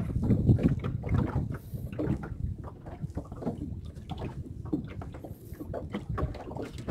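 Water lapping and slapping against a small boat's hull, with light wind on the microphone and irregular small knocks and rustles of handling.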